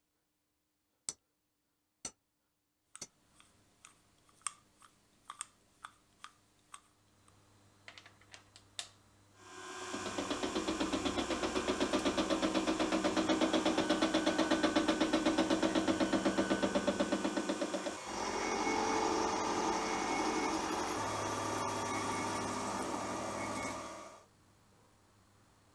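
Hammer blows riveting a small part in a jig held in a bench vise: two sharp blows, then a run of lighter taps. Then a milling machine cuts metal with a face mill, a loud steady cutting noise with a fast flutter that changes partway through and stops shortly before the end.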